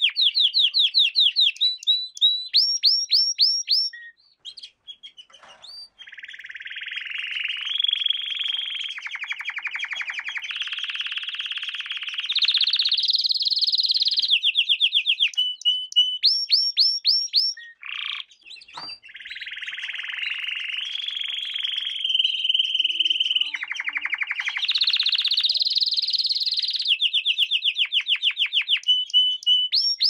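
Domestic canary singing a long song of fast trills and rolls, each phrase a rapid run of repeated notes, some rising sweeps and some buzzing rolls, changing pitch from phrase to phrase. The song breaks off briefly about four seconds in and again a little past the middle, then resumes with a similar run of phrases.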